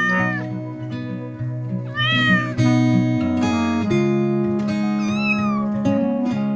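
A cat meows three times, each call rising and then falling in pitch: at the start, about two seconds in, and about five seconds in. Gentle plucked-string background music plays underneath throughout.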